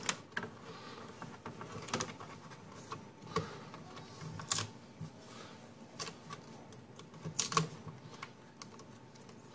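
Handling sounds from a disassembled mechanical keyboard: a few scattered light clicks and taps, a second or two apart, as its parts are moved and pressed back into place.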